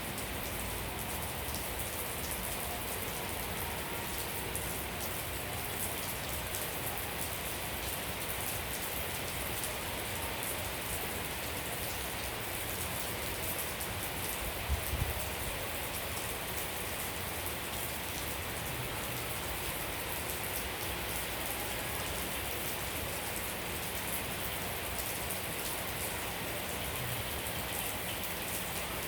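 Steady rain falling, a dense patter of many small drops with no let-up. About halfway through there is a brief low thump.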